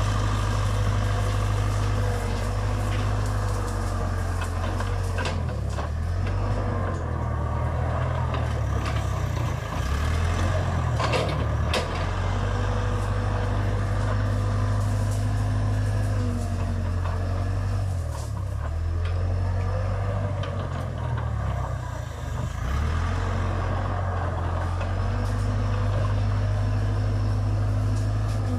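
Case 580 Super K backhoe loader's diesel engine running under load as it pushes into brush. Its note sags and recovers a few times, and sharp cracks and clicks come through, mostly in the first half.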